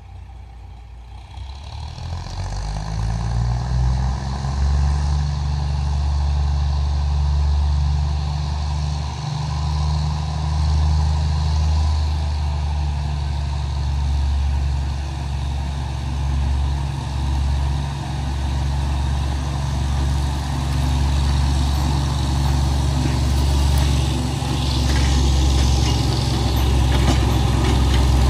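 Arcade & Attica Railroad diesel switcher locomotive No. 113's engine revving up about two seconds in, rising in pitch, then running at a steady low rumble. It grows louder as the locomotive rolls closer.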